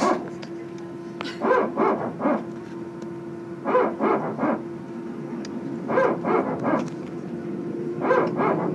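Airbus A320 hydraulic power transfer unit (PTU) barking. It gives groups of three or four short, dog-like barks about every two seconds over a steady hum, the unit cycling as it transfers pressure between two hydraulic systems.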